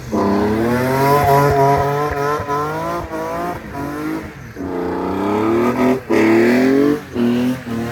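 High-revving sports car engine accelerating hard, its pitch climbing and then dropping at each gear shift several times before climbing again.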